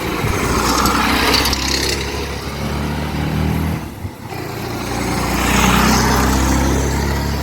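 Honda Twister 250 motorcycle's single-cylinder engine running as the bike is ridden. The sound rises and falls, drops off briefly about four seconds in, then swells again. The chain slider has just been replaced to cure chain noise.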